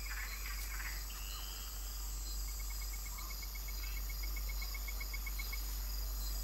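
Tropical night-forest ambience: insects trilling steadily at a high pitch, with a rapid ticking call of about eight pulses a second for some three seconds in the middle and a few faint short chirps. A steady low hum runs underneath.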